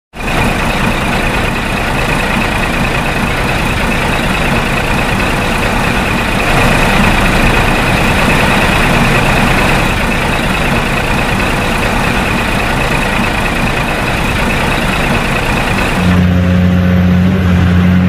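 Heavy vehicle engine running steadily: a loud, even noise with a high hiss over it. About sixteen seconds in it changes suddenly to a lower, steady hum.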